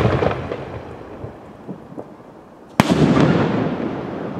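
Aerial firework shells bursting: the fading crackle and rumble of one burst at the start, a few small pops, then a sharp bang a little over halfway through that rolls away in a long fading rumble.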